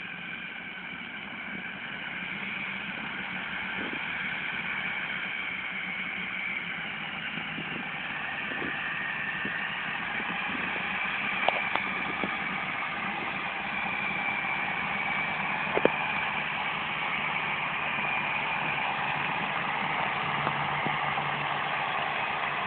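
Farm tractors' diesel engines running steadily under heavy load, one pulling the other and its loaded trailer through deep mud, growing slowly louder. Two short knocks stand out, about halfway through and a few seconds later.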